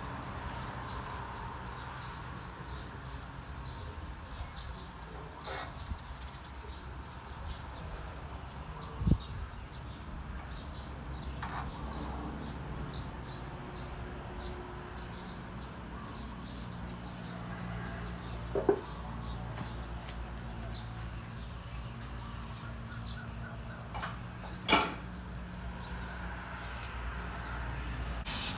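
Three sharp metal knocks, spaced several seconds apart, as motorcycle crankshaft parts and a connecting rod are set and moved on the steel bed of a press, over low workshop ambience.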